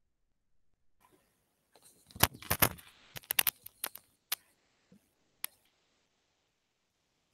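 A quick run of sharp clicks and knocks about two seconds in, lasting about two seconds, then two or three single clicks. These are handling noises close to a just-unmuted computer microphone.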